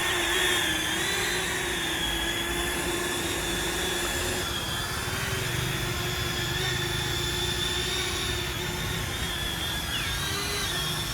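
DJI Neo 2 mini drone in flight, its propellers giving a steady whine at several pitches at once that wavers slightly, with a short dip and recovery in pitch about ten seconds in.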